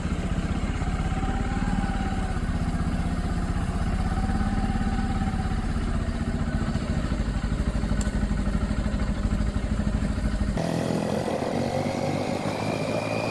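Motorbike engine running steadily at low speed under a heavy low rumble. The rumble drops away abruptly about three-quarters of the way through while the engine carries on.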